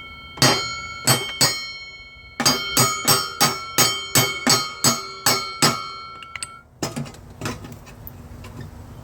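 Steel hammer blows on a John Deere Z335E mower-deck spindle to drive off its stuck pulley, each blow ringing like struck metal. A few separate blows come first, then a steady run of about ten at roughly three a second, then a couple of lighter taps near the end. The pulley is seized on the shaft and won't come off.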